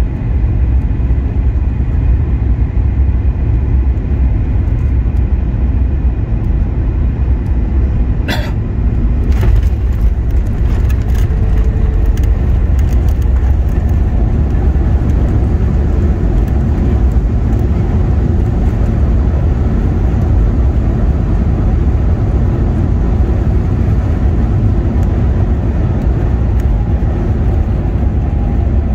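Cabin sound of a Boeing 737 MAX 9 landing: a steady low rumble of engines and airflow, then a sharp thump about eight seconds in as the wheels touch down, followed by a few rattles. The rumble goes on through the rollout, with a faint falling whine near the end.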